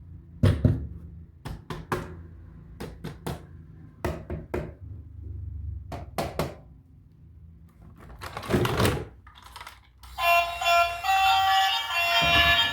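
Knocks and taps from toy vehicles and their packaging being handled, coming in small clusters, with a longer scraping sound about eight seconds in. Background music starts about ten seconds in.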